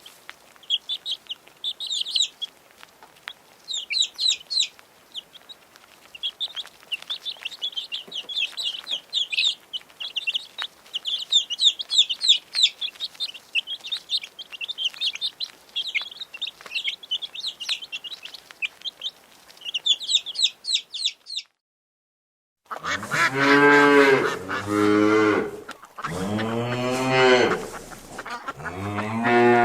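Chickens peeping in rapid, high, repeated chirps for about twenty seconds. After a short gap, a farm animal gives a series of loud, low calls of about a second each.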